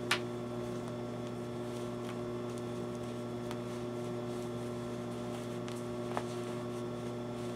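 Steady electrical mains hum, with a sharp click right at the start and a fainter click about six seconds in.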